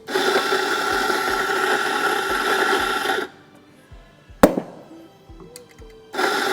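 Fiorenzato F64 E espresso grinder running for about three seconds, grinding coffee beans for a shot, then a single sharp knock and a brief second burst of grinding near the end.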